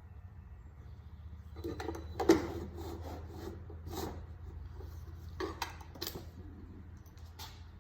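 A 15 mm wrench working the oil drain plug loose on a car's oil pan: irregular scraping and clicking of metal on metal, with one sharp knock about two seconds in.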